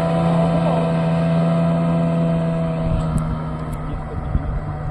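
Outboard motor of a small open fishing boat running at speed across the water, a steady engine tone that grows fainter in the second half as the boat moves away.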